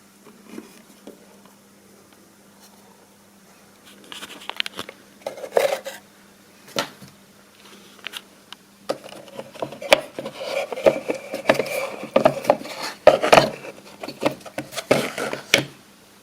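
A homemade useless box's servo-driven lid and arm whir and clatter in bursts, with clicks and knocks. The activity is sparse at first and busy and continuous through the second half. A faint steady hum sits underneath.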